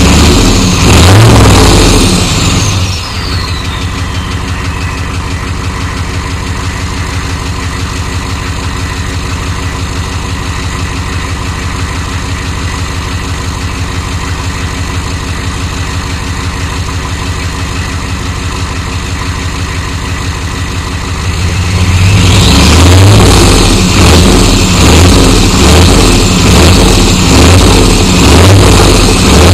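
A 1993 Chevy dually's 6.5L turbo diesel V8 revved, dropping back to a steady idle about three seconds in as a turbo whistle falls away. After about twenty seconds of idling it is revved again in repeated blips, the turbo whistle rising.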